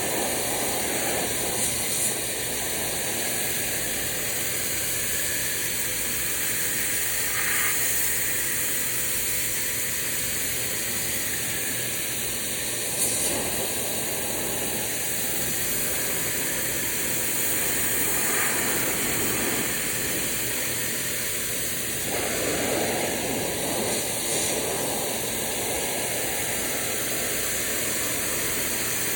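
Kranzle 1122TST pressure washer spraying a fence: a steady hiss of the high-pressure jet striking the boards, its tone shifting now and then as the wand moves.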